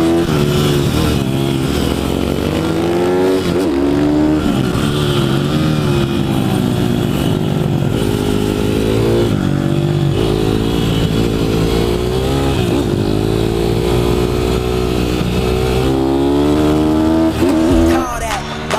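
Pit bike's small single-cylinder engine revving up and down hard on the throttle, its pitch rising and falling again and again as the rider accelerates out of corners and backs off into the next.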